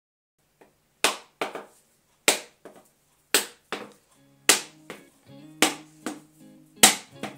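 Sharp knocks of a heavy knife striking a whole coconut held in the hand, cracking the shell open. There are six hard blows at a steady pace of about one a second, each followed by a lighter knock. Background music comes in about halfway through.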